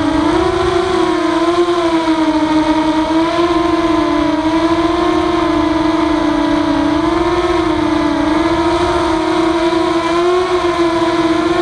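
Walkera F210 racing quadcopter's motors and propellers whining in flight: one steady pitched hum that wavers gently up and down in pitch.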